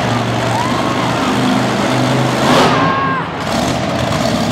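Monster truck engine running loud and steady, with a brief sharp rev about two and a half seconds in.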